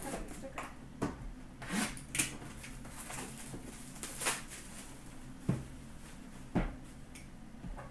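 Cardboard hockey card box being opened and handled by hand: a run of scrapes, slides and short knocks of cardboard, the sharpest about two seconds in.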